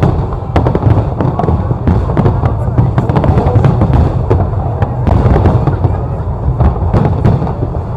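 Big fireworks display going off: a dense run of sharp bangs and crackles over a continuous low rumble, with no pause.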